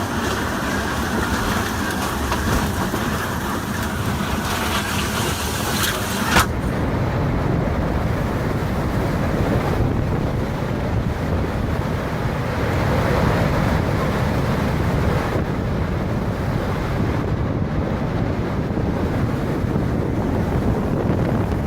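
Strong storm wind rushing and buffeting the microphone in a steady loud roar of noise, with a sharp click about six seconds in where the sound abruptly changes.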